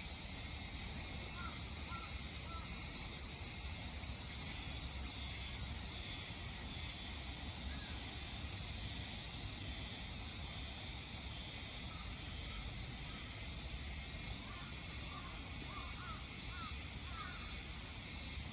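Steady high-pitched drone of insects, with short faint bird chirps now and then, a cluster of them near the end.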